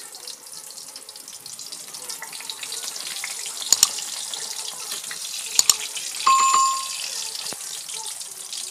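Battered tilapia deep-frying in oil in a wok, a steady sizzling hiss. A subscribe-button overlay adds two quick double clicks a little past the middle, then a short bell-like ding.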